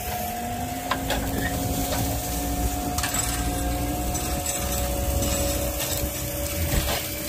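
Telehandler's diesel engine running with a steady whine that steps up slightly in pitch twice, and a few sharp metallic knocks and creaks as its forks work under the old car.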